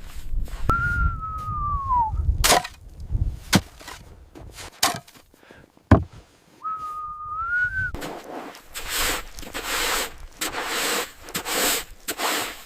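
A whistle-like tone sounds twice, the first sagging in pitch at its end and the second rising, with sharp cracks and knocks between them; then comes a run of regular crunching noises, about one a second.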